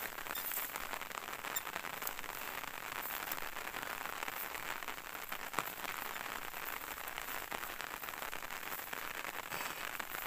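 Light rain falling: a steady patter of many small drop ticks.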